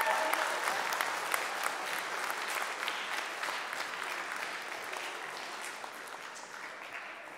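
Audience applauding, loudest at the start and slowly dying away.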